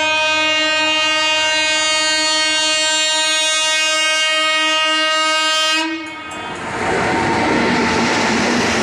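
Indian Railways electric locomotive sounding one long, steady horn blast as it approaches at speed. The horn stops about six seconds in, and the noise of its wheels on the rails takes over as it passes close by.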